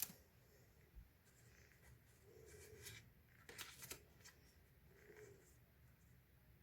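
Faint handling sounds from unboxing books and their packaging: a sharp click at the start, then soft rustles, with a short burst of rustling and clicks midway, against near silence.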